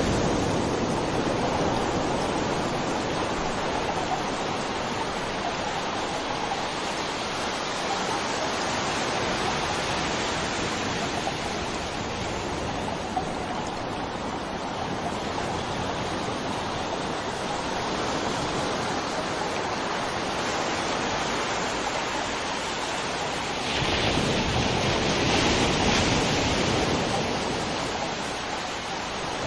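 Steady rushing water, rising and falling gently, with one louder swell lasting a few seconds late on.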